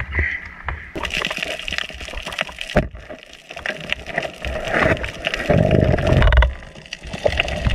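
Underwater water noise heard through a diving camera: water rushing and gurgling, with scattered sharp clicks and crackles, and a heavier surge of water noise about five seconds in as the speared fish is lifted.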